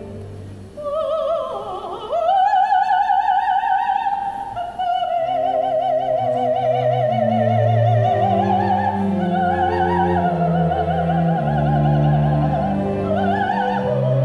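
Female soloist singing in a full operatic voice with wide vibrato over an orchestra. She enters about a second in with a slide down and back up, then holds long notes above sustained low orchestral notes.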